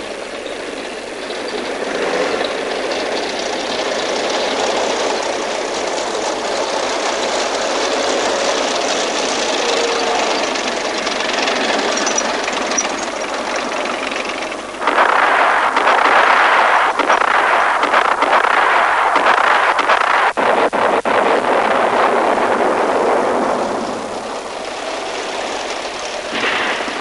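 Tanks on the move: engines running with the rumble and clatter of tracks, getting much louder about halfway through, with a few sharp cracks during the loudest stretch.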